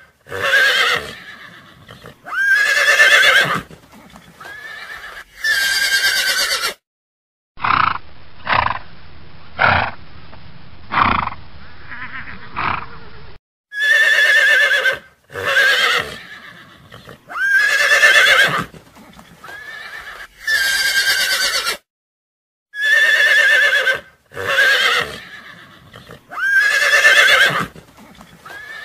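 Horses whinnying: loud, quavering neighs about a second long, coming in sets. A run of short, duller pulses fills several seconds after the first set, and the same sequence of neighs comes round again twice.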